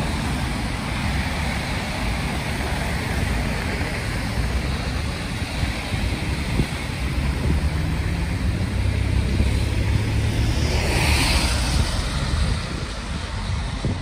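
Road traffic on a wet street: cars passing with tyre hiss, one passing close about three quarters of the way through, over wind buffeting the microphone.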